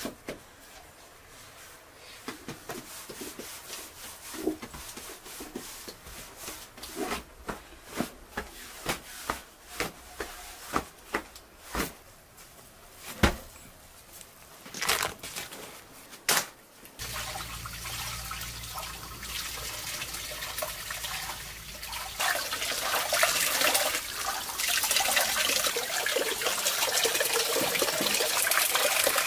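Irregular sharp taps and knocks as hands work bread dough against the clay wall of a tandoor. After about 17 seconds, running water takes over and grows louder from about 22 seconds, as fresh vegetables are rinsed in a metal colander.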